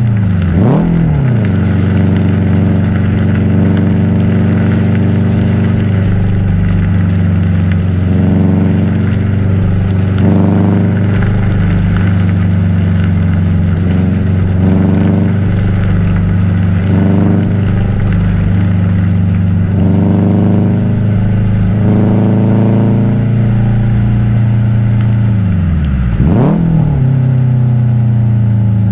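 Subaru WRX STi's turbocharged flat-four boxer engine and exhaust rumbling at steady revs while driving. Revs dip and sharply rise again at a gear change about a second in and again about 26 seconds in.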